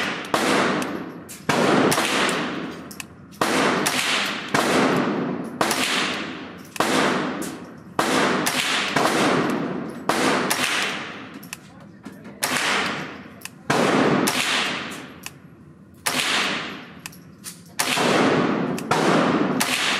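Smith & Wesson M&P 15-22 rifle firing .22 LR rounds at an unhurried, irregular pace of about one shot a second, some twenty in all. Each crack echoes down the indoor range.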